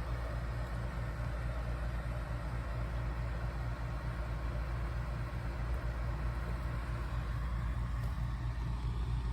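A steady, low mechanical hum with a fast, even pulse that does not change.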